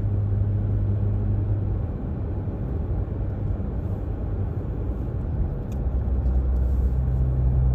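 Steady low road rumble and engine hum heard from inside a moving car. The hum drops out about two seconds in, and a deeper hum comes in near the end.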